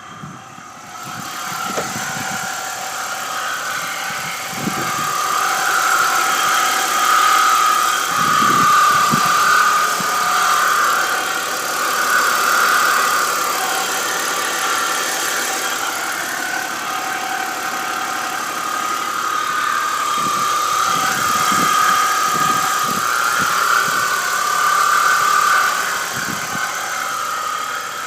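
BMW E46 330i's straight-six engine running just after starting, with a loud high-pitched whine that wavers up and down in pitch and loudness: the unexplained noise the owner hears after start-up.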